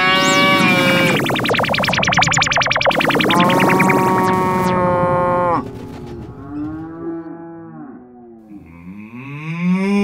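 Cow mooing, mixed with an electronic sci-fi beaming effect that pulses rapidly through the first five seconds or so. After that come quieter, bending moos, and one loud low moo near the end.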